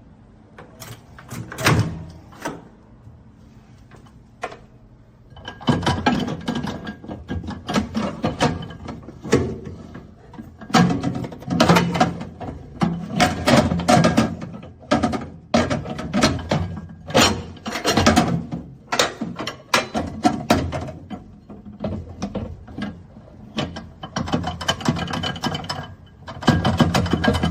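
Irregular knocks, clicks and clatter of objects being handled, some loud, over a faint steady hum.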